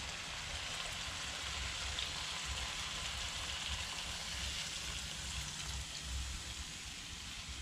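Water poured from a bowl into a hot pan of curry, hissing and sizzling steadily.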